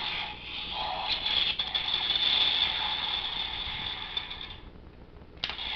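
The spinning centre disc of a plastic toy shuriken, the Ninninger Karakuri Hengen, whirring with a ratcheting rattle. It builds, then dies away after about four and a half seconds. A sharp click follows near the end.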